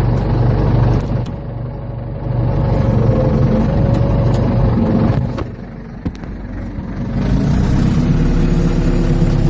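Ford 755 backhoe's engine running, easing off twice and picking back up, with its pitch rising near the end.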